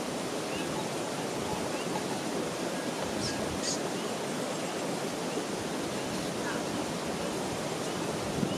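Steady rushing of flowing water, like a mountain stream or runoff.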